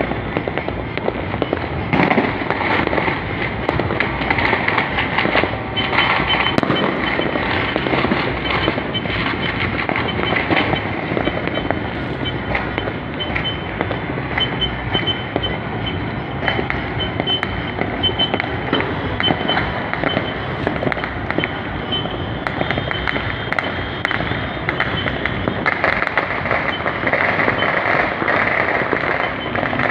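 Many fireworks and firecrackers going off at once in the distance, a dense, continuous crackle of pops and bangs with no pause.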